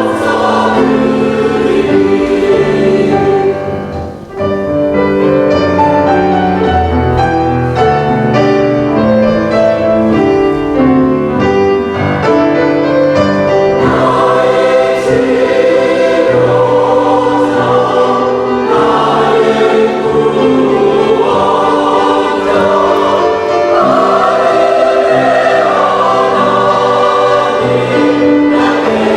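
Church choir singing a sacred anthem in parts, with sustained low accompanying notes; the music briefly drops away about four seconds in before the choir carries on.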